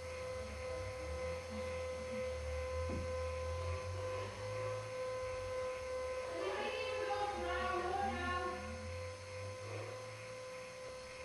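Steady electrical mains-type hum with a steady higher whine above it. A faint voice comes through about six to nine seconds in.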